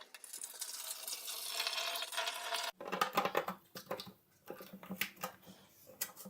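Water pouring into the plastic tank of a Deerma DEM F600 humidifier, cutting off suddenly just under three seconds in; after it comes a run of light clicks and knocks.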